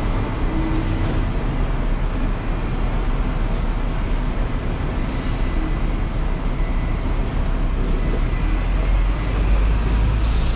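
Hong Kong double-deck electric tram running, heard from on board as a steady, loud rumble that grows a little stronger about nine seconds in.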